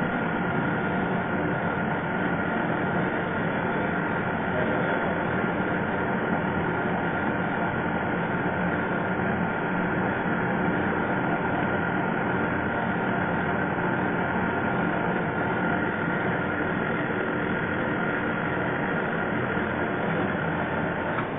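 Lathe running steadily with a constant machine hum and whine while a diamond knurling tool is fed along the turning workpiece.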